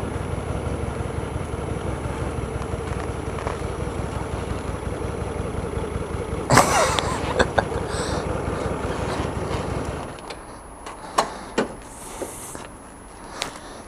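Hyosung GT125R's small V-twin engine idling steadily, with a sharp knock about two-thirds of the way in, then switched off suddenly about ten seconds in. A few light clicks and knocks follow in the quiet.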